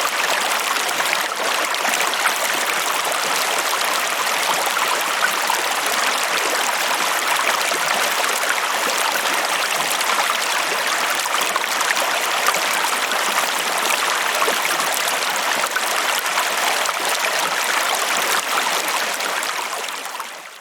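Flowing stream water, a steady rushing and babbling with small splashes, fading out near the end.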